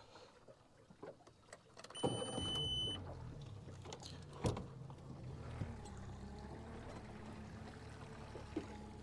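Small boat's outboard motor starting about two seconds in, then running steadily at low revs for trolling. A sharp clunk about four and a half seconds in.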